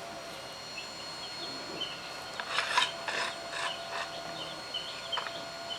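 Metal tube sliding and scraping inside a steel outer tube in a few short rubbing strokes, with faint squeaks, as it is worked in and a set slug grips it.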